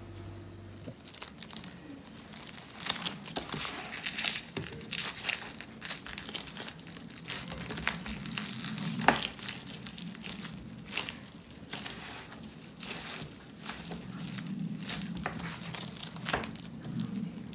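Bamboo sushi rolling mat (makisu) being rolled and pressed around a thick sushi roll: irregular rustling, crinkling and light clicking of the slats.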